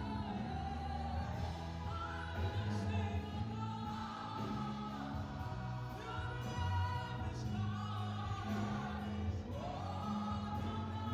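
Choir singing with instrumental accompaniment, held sung lines over sustained low bass notes.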